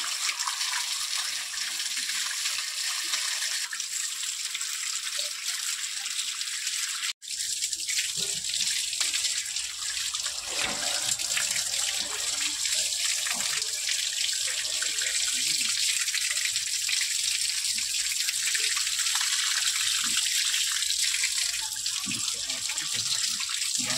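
Water running and splashing steadily, like a tap left running, with a sudden momentary dropout about seven seconds in.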